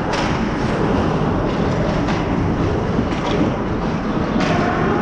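Ice hockey play in an echoing indoor rink: a steady scraping rumble of skates and sticks on the ice, with sharp knocks near the start and again about four and a half seconds in.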